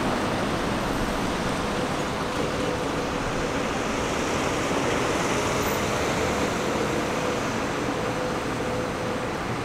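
Construction machinery running steadily: a constant rushing noise with a faint steady hum through it.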